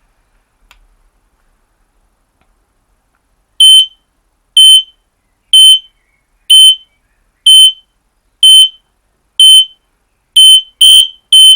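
Battery-powered radio-interlinked smoke alarm sounding on test: a loud, high-pitched beep about once a second, starting about three and a half seconds in. Near the end the beeps come faster and overlap, as more than one interlinked alarm sounds.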